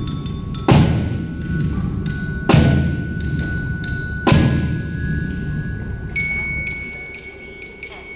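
Student percussion ensemble playing a melody on bell kits (glockenspiel) and xylophone, with three heavy bass drum strikes about two seconds apart. From about six seconds in the drum stops and the bells ring alone, softer.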